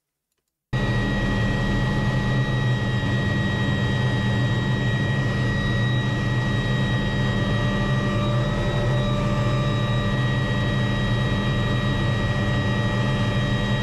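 Helicopter running: a steady engine and rotor drone with a constant high rotor whine over a low hum, cutting in abruptly just under a second in.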